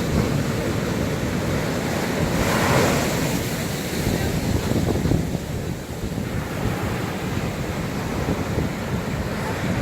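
Sea waves washing onto the shore, with wind buffeting the microphone; a wave breaks and hisses up more loudly about two and a half seconds in.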